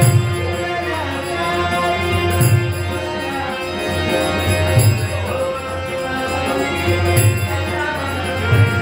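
A male voice singing a Marathi stage song in a female role, accompanied by a harmonium's sustained chords. A low drum stroke with a cymbal clash falls about every two and a half seconds.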